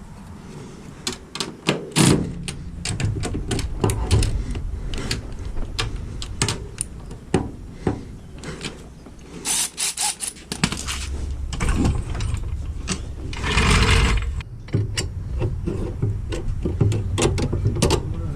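Hand socket ratchet clicking in runs while a nut is tightened on a car's suspension, with scattered metal knocks and clanks of tools and parts.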